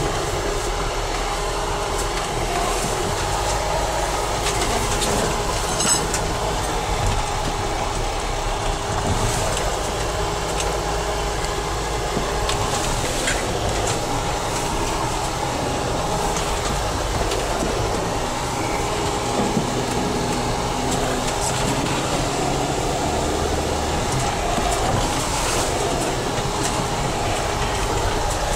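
Mercedes 4x4's engine and drivetrain running steadily under way, heard from inside the cab, with a low rumble and a steady hum. A few short knocks and rattles break in as it bumps along a rutted snowy dirt track.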